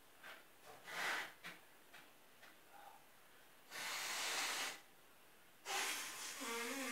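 A person sniffling and sneezing: a few short sharp sniffs in the first second and a half, a long forceful blast of breath through the nose about four seconds in, and near the end a sudden burst that trails off into a wavering voiced sound.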